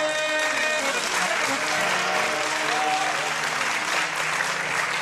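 End of a live qawwali: a held chord, typical of the harmonium, stops less than a second in. Audience applause follows, with faint pitched voices among the clapping.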